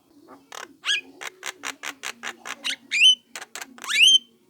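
Young Javan myna (jalak kebo) calling: a run of harsh clicking notes, about three to four a second, broken by rising whistles about a second in, at three seconds and near the end.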